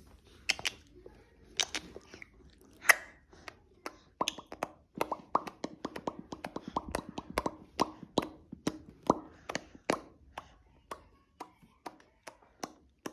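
A baby making a string of short mouth clicks and smacks, a few at first and then two to four a second for several seconds, some with a brief hum of voice.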